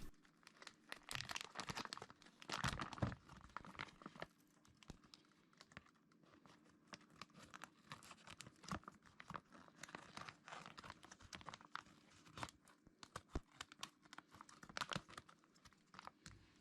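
Faint, irregular crinkling and tearing of the plastic vacuum-sealed bag around a spool of matte PLA filament as it is cut and pulled open, with scattered small crackles throughout.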